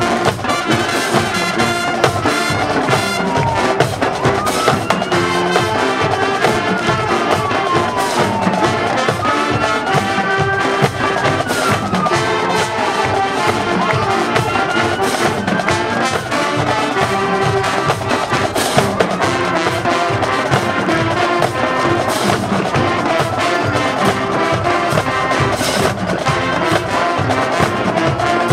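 High school marching band playing: brass section over drumline percussion keeping a steady beat.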